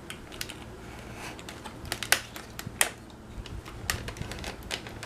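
Irregular sharp clicks and taps from a Panasonic AG-450 S-VHS camcorder being handled, with two louder clicks about two and three seconds in.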